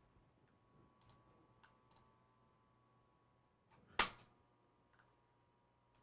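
A few faint computer mouse clicks, then one sharper click about four seconds in, over a faint steady electrical hum.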